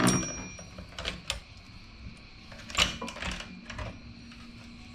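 Loose steel saw-chain links clinking and rattling as the chain is handled and laid across a wooden workbench, in a few separate clatters, the loudest at the very start and about three seconds in.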